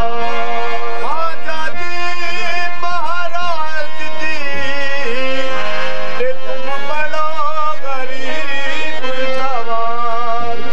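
Qawwali performance: harmonium playing sustained chords under male voices singing ornamented, wavering lines, with occasional low drum strokes.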